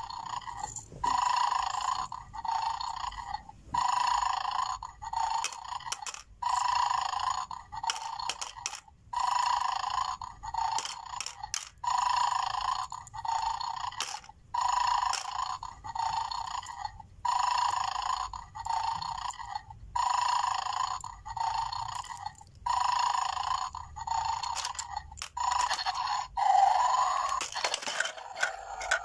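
Electronic snoring loop from the small speaker of a battery-operated 'Mad Dog' bulldog toy, a long and a short snore repeating every two to three seconds while the dog 'sleeps' over its bowl of bones. Near the end the pattern breaks into a louder sound with a clatter as the dog's head springs forward.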